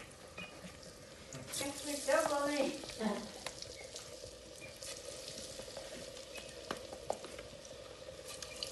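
A spoon stirring and scraping thick cornmeal dough in a bowl, with scattered clicks of the spoon, over the steady sizzle of hot oil in a pot on a wood-fired stove.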